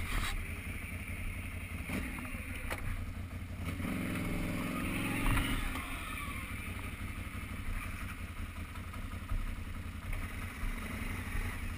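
Can-Am Renegade 800 ATV's V-twin engine running at low speed, with a louder, higher engine note for about a second and a half near the middle.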